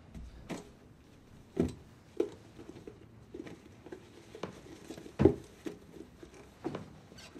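Leather boots being pulled on by someone seated on a chair: scattered knocks, scuffs and shuffles, the loudest knock about five seconds in.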